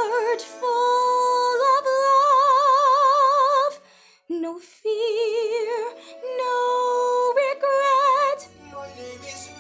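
A young woman singing long held notes with a wide vibrato in a showy musical-theatre style, with a short break about four seconds in; the singing stops shortly before the end.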